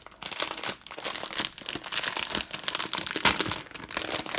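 Clear plastic packaging crinkling and crackling as it is handled: a bag holding small packets of diamond-painting drills is picked up and squeezed, giving dense, irregular crackles.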